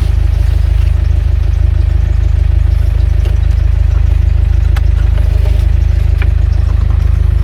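Car engine running steadily with a low, even rumble, with a few faint clicks over it.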